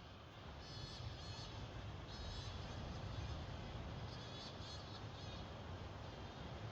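Bats calling in flight: short bursts of high, rapid chirping chatter, three times, over a steady low rumble.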